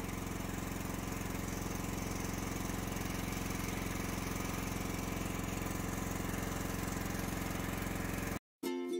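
Boat engine running steadily with an even throb. It cuts off abruptly near the end, and ukulele music starts.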